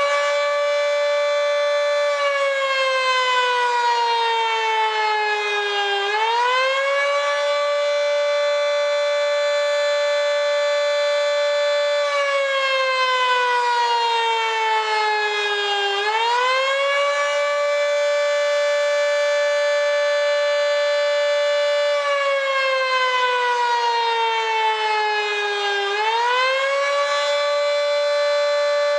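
Federal Signal 2T22 dual-tone outdoor warning siren, a three-phase model with its top intake completely blocked, sounding the Attack signal. Its pitch holds high for about five seconds, slides down over about four seconds, then winds quickly back up. The cycle comes three times.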